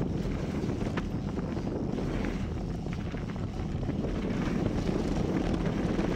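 Wind buffeting the microphone of a handlebar-mounted camera as a mountain bike rolls down a dirt trail, a steady low rumble with the tyres on the dirt, and a few faint clicks and rattles.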